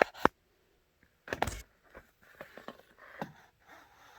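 Handling noise from the camera being set up and repositioned: two sharp clicks at the start, a short scraping rustle about a second and a half in, then small scattered knocks and taps.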